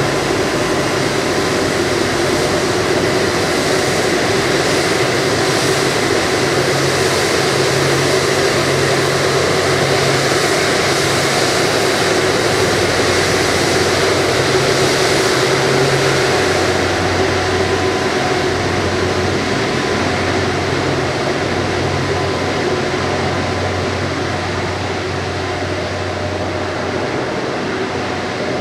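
Airbus A330-300 jet engines at taxi power: a steady jet whine and rumble as the airliner taxies by, easing a little about halfway through as it moves away.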